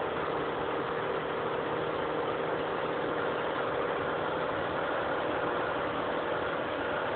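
Chevrolet Corsa 1.6 four-cylinder engine running at a steady pitch while the car is driven fast, heard inside the cabin under a constant rushing road and wind noise.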